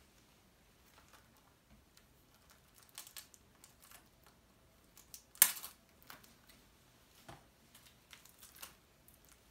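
Shrink wrap on a Blu-ray case being cut and pulled open with scissors: scattered plastic crinkles, snips and clicks, with one sharp, louder crack about five and a half seconds in.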